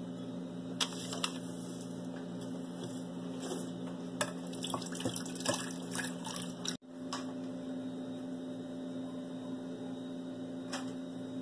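Milk poured from a glass measuring jug into a nonstick saucepan, splashing irregularly with a few light clinks of glass, over a steady low electrical hum. About two-thirds of the way in the pouring stops abruptly, leaving only the hum.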